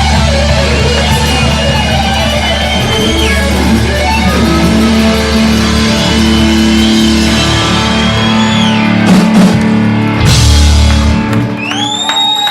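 Live rock band with electric guitars and drum kit playing the end of a song. A final crash about ten seconds in rings briefly and the band stops. Near the end a loud, high whistle rises and holds as the audience starts to react.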